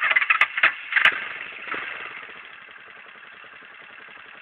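A quick clatter with two sharp clicks, about half a second and a second in, then a small ATV engine idling steadily.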